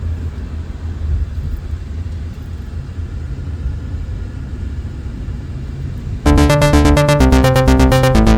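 Low, steady rumble of a car's road and engine noise heard from inside the cabin. About six seconds in, loud electronic music with a steady beat starts suddenly.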